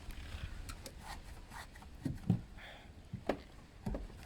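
Handling noise from work on a car's plastic side skirt trim: soft rubbing with a few sharp knocks and clicks scattered through.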